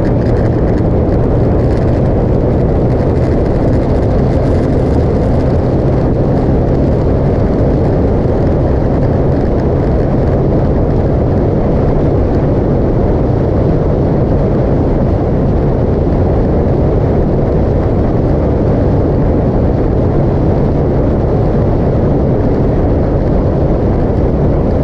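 Motorcycle engine running steadily at cruising speed, its low engine note holding an even pitch under a dense rush of wind noise.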